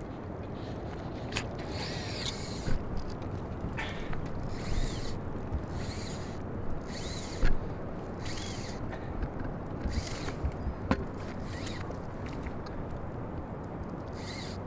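Fly reel ratcheting in a series of short, high-pitched bursts as a hooked bonefish is played on the line.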